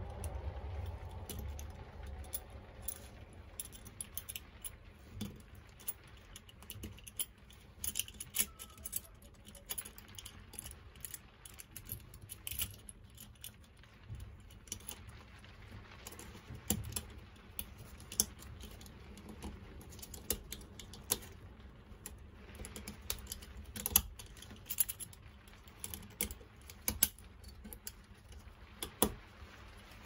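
Irregular small metallic clicks and taps from an old padlock's internal parts and steel case being handled and fitted back together, with a few sharper clicks near the end.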